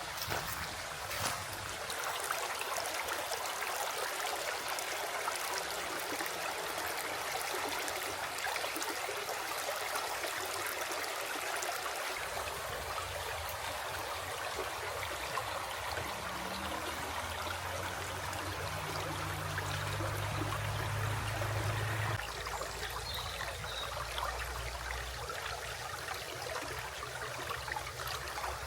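A river flowing steadily. A faint low hum sits under the water for several seconds in the middle, and the sound shifts abruptly about three-quarters of the way through.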